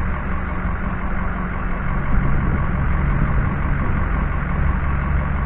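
A vehicle engine running steadily at a low, even hum, without change in pitch or level.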